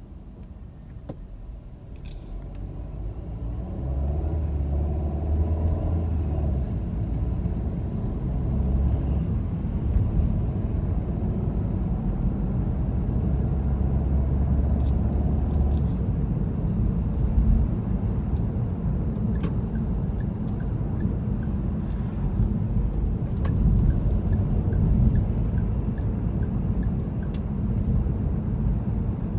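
Car pulling away from a stop and driving through city traffic, heard from inside the cabin: a low engine and road rumble that swells over the first few seconds, then holds steady.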